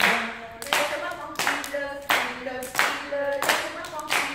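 A group clapping hands together in a steady rhythm, about one and a half claps a second, while voices sing a tune between the claps.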